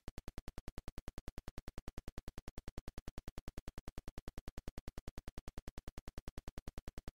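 A steady, evenly spaced train of sharp electronic clicks, about ten a second, every click the same level.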